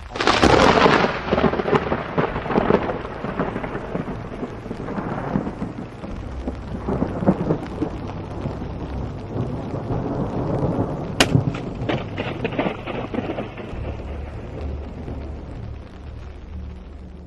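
Thunder: a sudden loud crack that rolls on in a long crackling rumble, swelling and fading several times. A second sharp crack comes about eleven seconds in.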